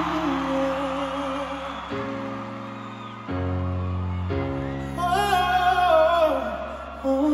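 A singer holding long notes with vibrato over sustained keyboard chords that change every second or two. About five seconds in, the voice climbs to a louder, higher held note that then falls away.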